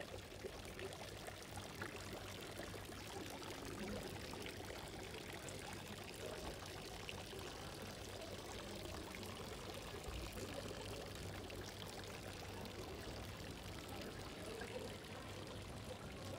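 Faint, steady rush of flowing water.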